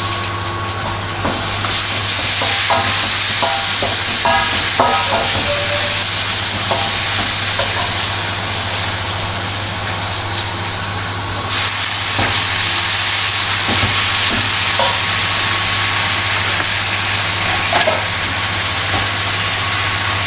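Food sizzling loudly in oil in a hot pan, with scattered scrapes and clicks of a cooking utensil stirring it. The sizzle eases a little about halfway through.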